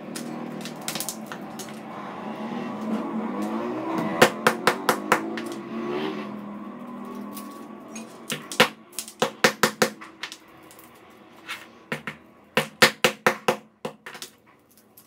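Quick runs of sharp chopping strikes on a plastic cutting board: three bursts of about five strokes each, plus a few single strikes. A steady hum sits underneath for the first half, rising in pitch before it fades out.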